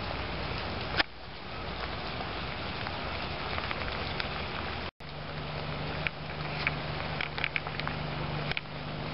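Steady rain, with a single sharp click about a second in and scattered drips and taps toward the end. The sound drops out for an instant about five seconds in, then a steady low hum runs under the rain.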